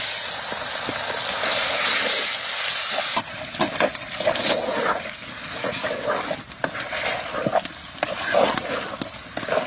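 Marinated meat tipped into hot mustard oil with sliced onions, setting off a loud sizzle. After about three seconds the sizzle drops sharply and a wooden spatula stirs the meat, with scattered scraping and crackling.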